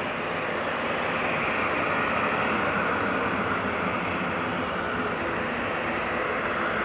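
Airbus A321-211's CFM56 turbofan engines at climb power as the airliner climbs away after takeoff: a steady jet noise.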